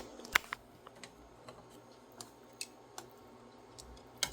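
Irregular sharp clicks and taps of a utensil against a cooking pot while softened instant ramen noodles are broken apart, loudest at the start, about half a second in and near the end.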